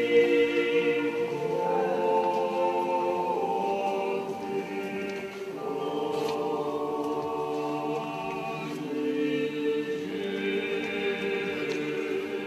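Unaccompanied Russian Orthodox church choir singing a slow memorial chant of a panikhida, in long held chords that shift every second or two.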